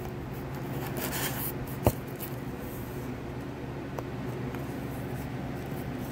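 Hands handling an eyeshadow palette box and cardboard packaging: soft rubbing and rustling, with one sharp click about two seconds in and a fainter click about four seconds in, over a steady low hum.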